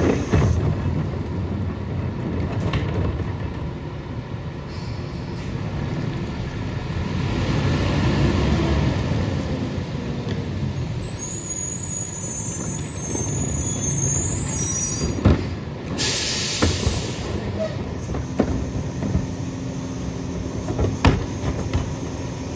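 Western Star rear-loader garbage truck's diesel engine running, swelling as the truck pulls ahead, with some high squeaks and a short sharp air-brake hiss about two-thirds of the way through. A few sharp clanks follow as plastic garbage carts are handled and tipped at the rear hopper.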